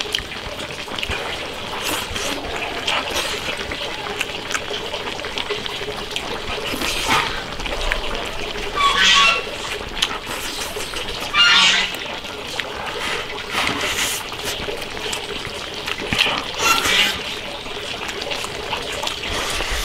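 Steady trickling, splashing liquid sound, with several short, louder bursts of noise in the second half.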